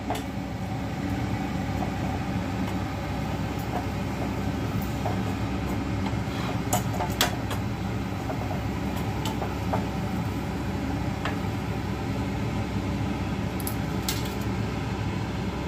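Steady low rumble of a gas stove burner's flame, with a few faint light clicks of a metal spatula against the burner.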